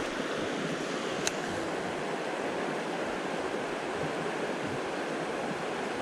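Shallow creek water running steadily over gravel and rocks, a continuous rushing noise, with one sharp click about a second in.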